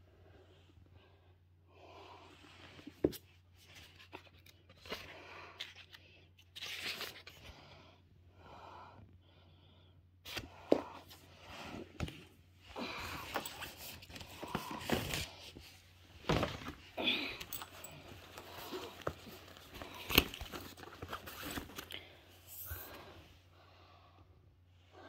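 Rustling and crinkling handling noises as paperback books are taken out of a bag and laid out on a wooden floor, with a few sharp knocks scattered through.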